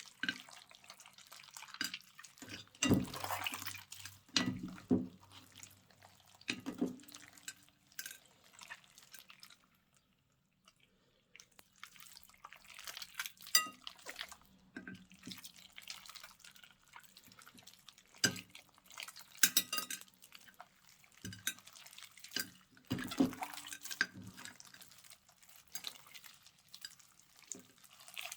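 Slime being mixed: irregular sticky squelches, drips and small clicking pops, with a short quiet pause about ten seconds in.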